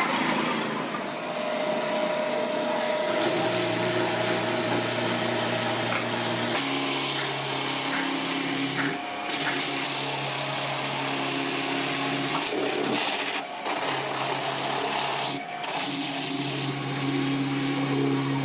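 A small power tool running continuously, its pitch stepping up and down every few seconds, with a few brief breaks where it dips.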